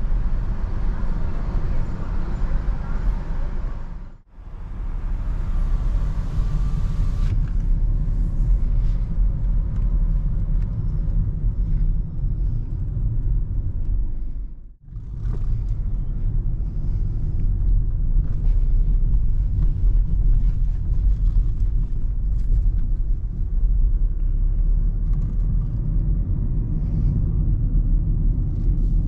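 Low, steady cabin rumble of a BMW 2 Series Active Tourer (F45) with a 1.5-litre petrol engine: engine and road noise heard from inside the car while driving. The sound dips out briefly twice, about 4 and 15 seconds in.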